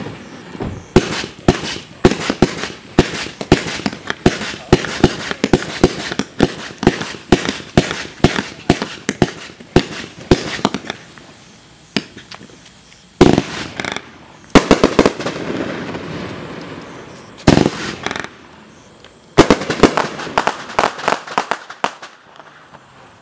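A 35-shot, 500-gram consumer fireworks cake (NCI Surf's Up) firing. For the first ten seconds or so it fires a steady volley of shots, about two a second. Then come a few louder single shots spaced a second or more apart, with sound trailing on after each, and a quick cluster of shots near the end.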